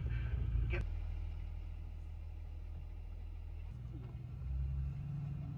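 Steady low engine and road rumble heard from inside a moving tour bus, its character shifting slightly about a second in and again near the four-second mark.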